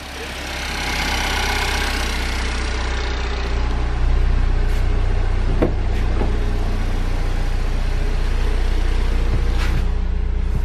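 Cadillac ATS 2.0T's turbocharged four-cylinder engine, fitted with a ZZPerformance cold air intake and throttle body, idling steadily about a minute after a cold start; the hum gets louder about four seconds in. A couple of light knocks come later.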